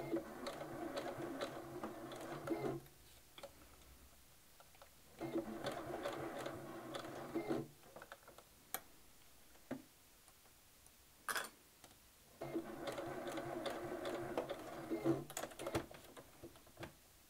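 Sewing machine stitching crochet onto fabric in three short runs of two to three seconds each, stopping between runs. A few sharp clicks fall in the pauses.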